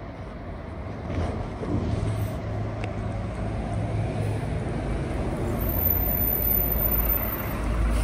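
City bus pulling in to a stop, its engine rumbling over street traffic noise and growing louder as it comes close, with a thin high squeal near the end.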